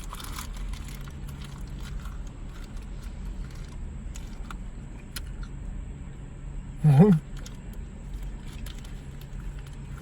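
Chewing a mouthful of ten mango Hi-Chew candies at once: faint wet mouth clicks and smacks over a steady low hum, with a short wavering hummed "mm" from the chewer about seven seconds in.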